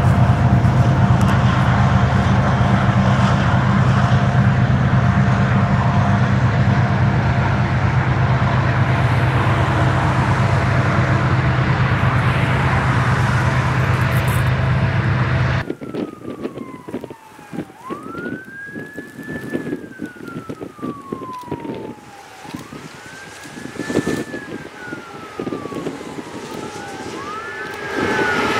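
A loud, steady, low rumble that cuts off suddenly about halfway through. A siren then wails over quieter background noise, rising and falling slowly about three times.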